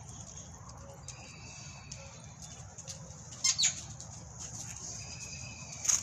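American Bully puppies giving short, high-pitched squeals while wrestling: a thin whistle-like squeal about a second in, a louder one about three and a half seconds in and another near the end.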